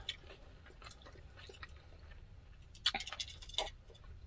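Quiet close-miked eating sounds: chewing, with a couple of short sharp clicks about three seconds in.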